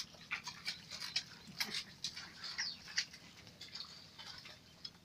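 A run of short, high-pitched animal chirps and squeaks, several a second.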